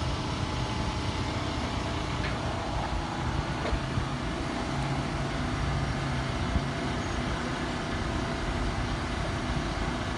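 A vehicle engine idling steadily, a low even hum with no changes.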